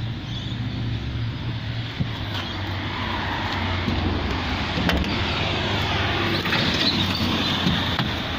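Vehicle noise, likely passing traffic, that slowly builds and swells over several seconds with a gliding pitch, plus a couple of sharp clicks or knocks.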